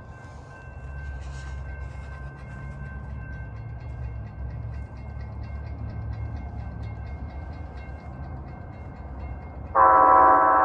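Approaching Amtrak passenger train: a low locomotive rumble building, under a grade-crossing bell ringing steadily. About a second before the end the locomotive's horn sounds loud, a chord of several held notes.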